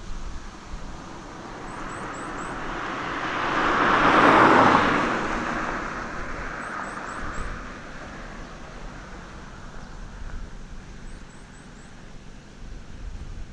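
A car passing by, its road noise swelling to a peak about four seconds in and fading away over the next few seconds. Faint high chirps come in short groups of two to four throughout.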